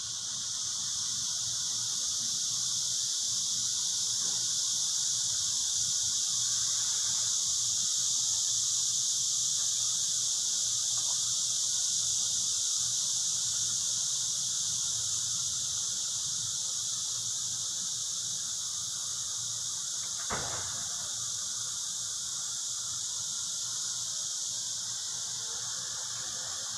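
A steady, high-pitched hiss throughout, with one short knock about twenty seconds in.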